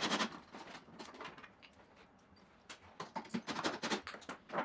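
Scattered sharp clicks and light rattles of loosened 10 mm bolts and the impact driver's socket being handled on a golf cart's plastic bag-well floor. A quick cluster of clicks comes at the start and a denser run about three seconds in.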